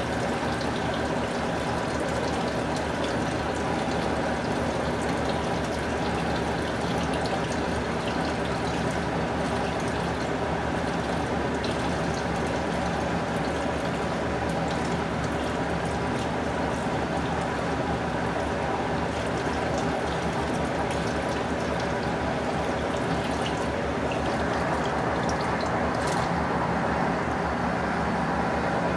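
Electrolux Prosdócimo washing machine running its rinse, with water running and sloshing in the tub over a steady mechanical hum.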